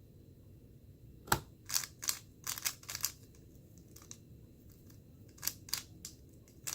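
Moyu Weilong GTS2M speed cube being turned fast, its layers making sharp clicks in quick bursts, with a pause of a couple of seconds between bursts.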